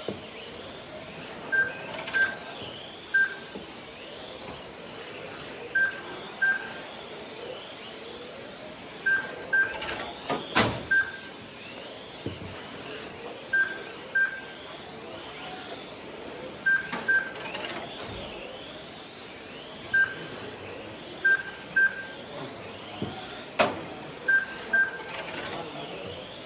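Electric 1/12-scale GT12 RC cars whining past as they lap the track, with short high beeps from the lap-timing system going off repeatedly, often in pairs, as cars cross the line. A sharp knock comes about ten seconds in.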